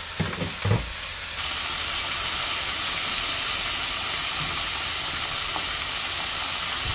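Floured pieces of cod frying in hot oil in a wok: a steady sizzle that grows louder and fuller about a second and a half in. A couple of short low knocks come near the start.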